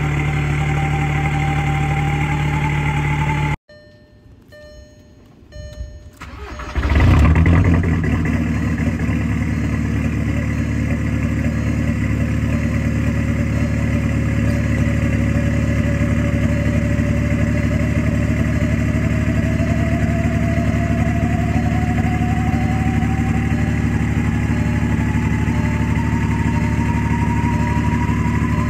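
Straight-piped VW Mk4 Golf TDI's four-cylinder turbo-diesel idling, cut off abruptly about three and a half seconds in. After a quiet gap with three faint beeps, the engine cranks and starts about seven seconds in and settles into a loud, steady diesel idle with a faint whistle that slowly dips and then rises in pitch.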